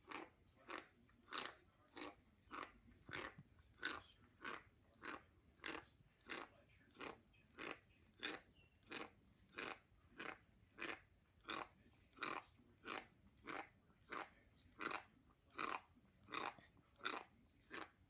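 Cat chewing dry kibble: a steady run of crisp crunches, about one and a half a second.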